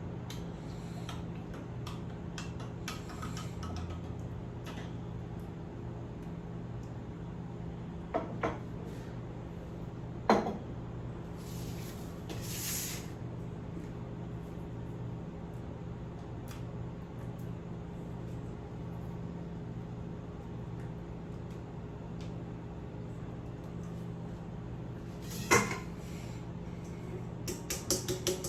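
Kitchen handling sounds: a few sharp knocks of dishes and utensils, the loudest about ten seconds in and another near twenty-six seconds, a short hiss around twelve seconds, and a quick run of clicks near the end, over a steady low hum.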